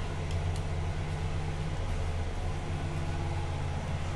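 Steady low machine hum at a constant pitch.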